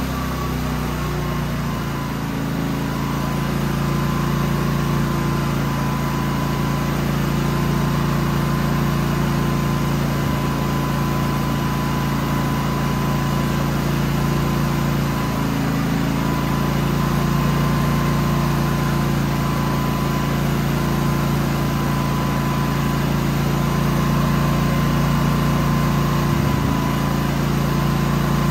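Genmax GM9000iED dual-fuel inverter generator's engine running at a steady speed, its pitch settling in the first couple of seconds. It is running after a successful start on a newly replaced ignition module.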